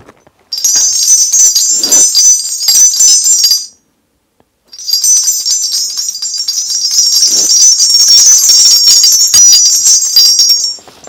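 Korean shaman's hand bell rattle (mugu bells) shaken fast in a steady jingle for about three seconds, stopping for a second, then shaken again for about six seconds, calling down a spirit to speak through her.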